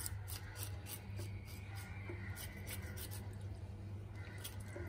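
Knife blade scraping along the wet skin of a Bombay duck fish in quick, irregular strokes, about three or four a second, cleaning the fish. A steady low hum runs underneath.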